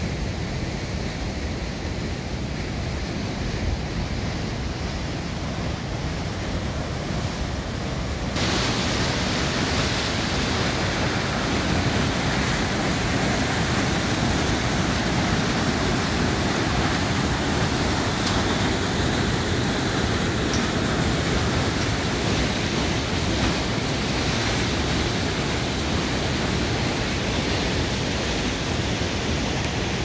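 White-water rapids rushing through a narrow rock channel: a steady, even rush of water that turns louder and brighter about eight seconds in.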